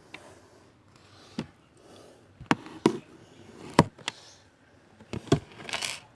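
A series of sharp, separate knocks and taps of household objects being handled, with a short rustle near the end.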